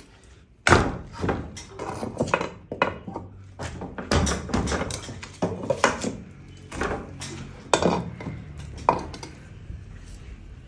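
Irregular knocks and thuds of hand-tool work on an old wooden door frame, struck again and again at an uneven pace, the hardest blow about a second in.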